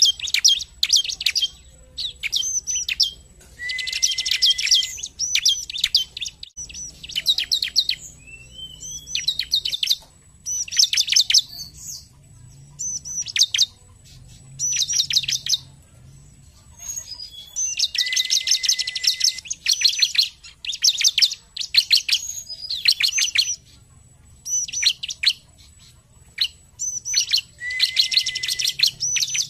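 Bar-winged prinia (ciblek) in full song: bursts of rapid, high, buzzy trills repeated every second or so with short gaps between them. Several phrases open with a short, steady lower note, and one rising whistled glide comes about eight seconds in.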